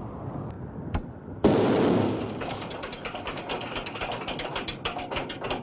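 A knock, then about a second and a half in a sudden loud rush of noise that turns into a fast run of ratchet clicks, roughly ten a second, from a ratchet tool being worked.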